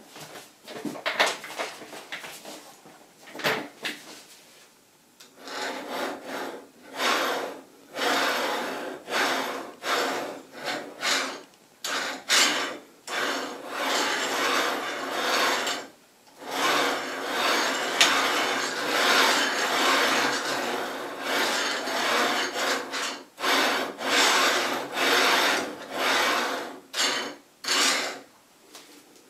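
Linear ball-bearing blocks rasping along the steel guide rods of an H-bot gantry as the carriage is pushed back and forth by hand, in strokes of about a second each. The first few seconds hold only a few short clicks and brief rubs before the strokes run nearly without a break.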